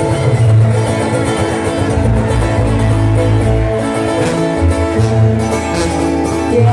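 Live sierreño band: acoustic guitars, one a twelve-string, playing an instrumental passage over a steady bass line, heard loud through the concert PA.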